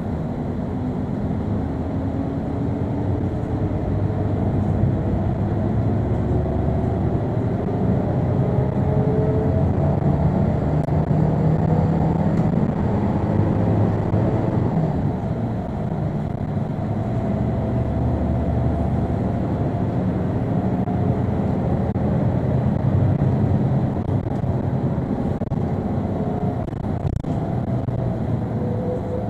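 A TransJakarta city bus driving, its engine and road noise heard from inside the cabin. The engine's pitch climbs slowly several times as the bus pulls through its gears.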